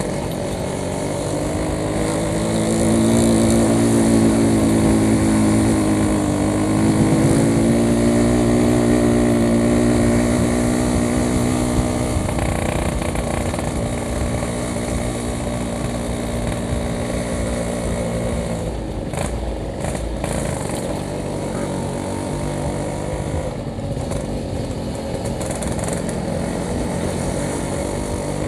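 Yamaha RX-King's two-stroke single-cylinder engine running while ridden, its pitch rising and falling with the throttle: louder and higher in the first dozen seconds, with a brief dip about six seconds in, then easing to a lower, steadier note.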